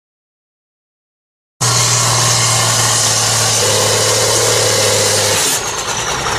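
Case International tractor's diesel engine running flat out under heavy load, dragging a pulling sled. It starts suddenly about one and a half seconds in and holds loud and steady, with a higher tone joining about halfway.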